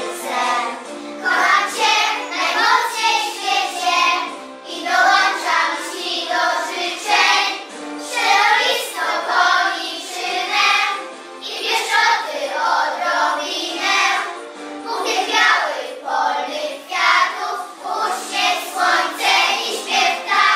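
A children's song: young children's voices singing together over an instrumental backing.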